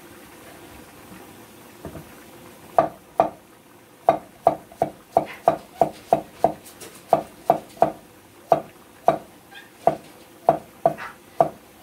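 Wide-bladed kitchen knife slicing a zucchini on a wooden cutting board: a quick, even run of sharp knocks on the board, about three a second, starting nearly three seconds in.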